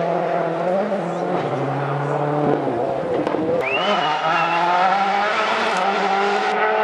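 World Rally Car's turbocharged engine revving hard under load, its pitch climbing and then dropping at several gear changes.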